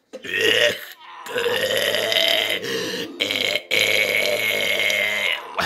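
A cartoon frog character's voice coughing and hacking in long guttural croaks, in four drawn-out stretches, the longest nearly two seconds.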